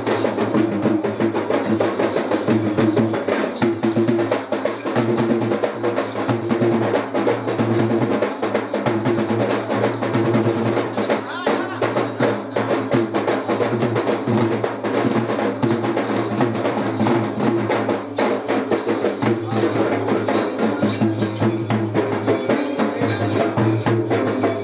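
Several Sri Lankan low-country yak bera drums, double-headed and beaten by hand, playing fast, continuous strokes.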